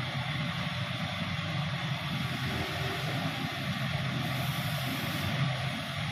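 Weichai 215E hydraulic excavator's Weichai diesel engine running steadily at idle, a constant low hum under a broad mechanical hiss.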